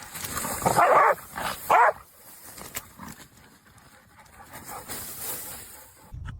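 A dog barking, with two loud barks about one second and just under two seconds in, then quieter sounds.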